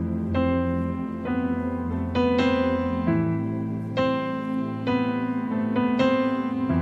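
Piano keyboard playing a slow instrumental passage: single notes and chords struck about once a second over held low bass notes.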